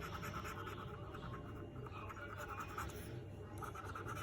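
Quick rapid strokes scraping the coating off a scratch card panel to reveal a symbol, with short pauses about halfway through and just after three seconds in.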